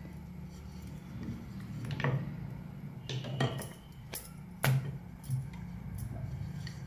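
Wooden rolling pin rolling out a stuffed paratha on a round rolling board, with several sharp clicks and knocks between about two and five seconds in as the pin and the paratha are lifted, turned and set down, over a low steady hum.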